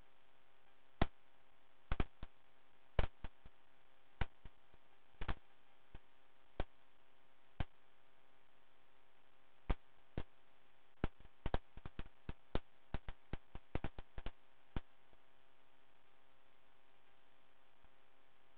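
Scattered sharp clicks and pops over a faint steady hum on the aircraft's radio and intercom audio feed. The clicks are irregular, coming most thickly from about eleven to fifteen seconds in.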